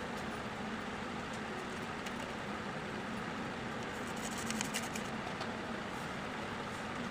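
Scissors cutting paper, a few quick snips about halfway through, over steady background noise.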